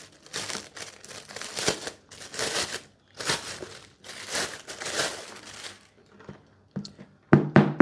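Packaging being unwrapped by hand: irregular crinkling and rustling, then a few sharp knocks near the end.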